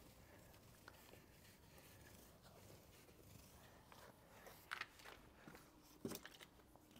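Near silence, broken by two brief faint scrapes, one shortly before the end and one near the end.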